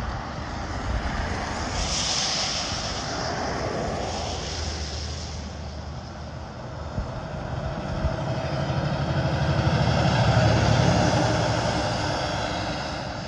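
A pickup truck passes with a brief rush of tyre noise about two seconds in, then a tractor-trailer trash hauler approaches and passes close by, its diesel engine and tyres building to a peak around ten seconds in and then fading as it goes.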